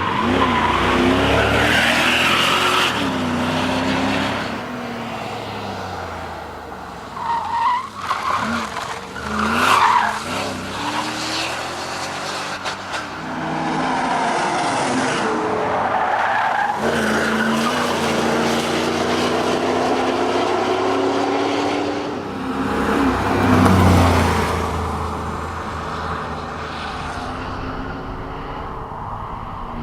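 Mercedes-Benz SL500's V8 engine driven hard, its note repeatedly climbing and dropping with throttle and gear changes. Tyres squeal in short bursts about seven to ten seconds in.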